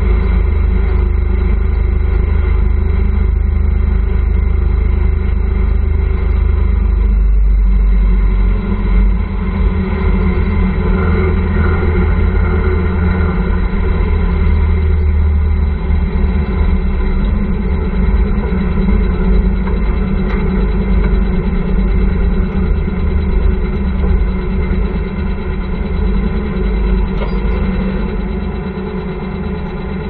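Motorcycle engine of a tricycle (motorbike with sidecar) running steadily on the move, with a heavy low rumble throughout.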